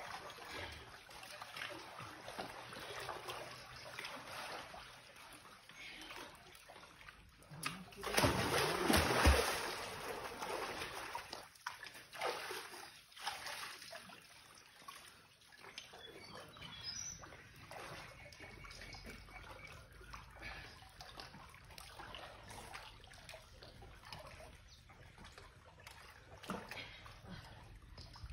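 Water splashing and sloshing at the foot of a stone well wall as swimmers pull themselves out and climb, with one louder splash about eight seconds in.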